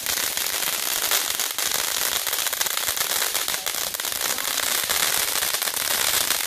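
Ground fountain firework spraying sparks: a steady, loud hiss laced with dense crackling.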